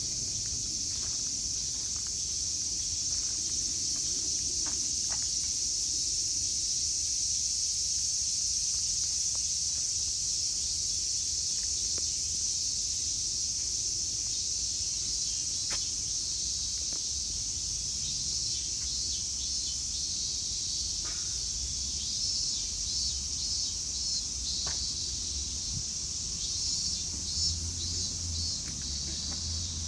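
Steady, high-pitched chorus of insects, with a rapidly pulsing insect call joining in a little past halfway.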